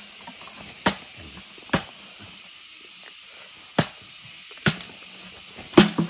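Mouth sounds of someone eating sticky rice by hand close to the microphone: five sharp smacks or clicks, roughly a second apart, over a steady faint hiss.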